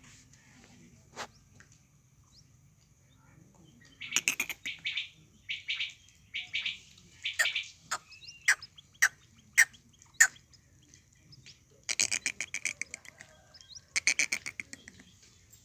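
Quail (desi batair) calling: short sharp notes and chattering clusters from about four seconds in, then two longer rapid pulsed trains near the end.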